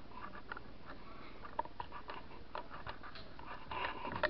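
Faint, scattered ticks and rustles of handling close to the microphone, with a soft breathy sound building near the end.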